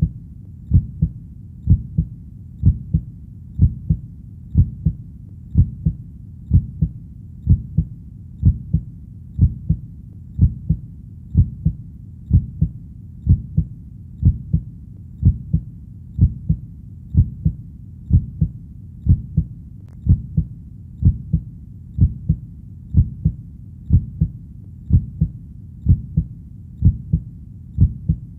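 Heartbeat beating steadily in a double 'lub-dub' rhythm, about one beat a second, over a low steady hum.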